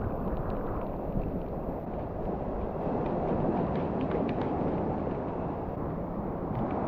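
Steady wind rushing and buffeting the microphone, with a few faint ticks around the middle.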